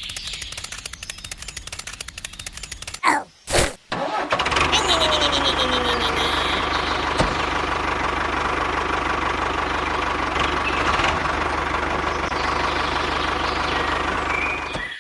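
Small engine of a DIY mini tractor ticking over fast for about three seconds, then two short loud bursts with brief drop-outs. From about four seconds in it runs steadily and louder, with a low hum.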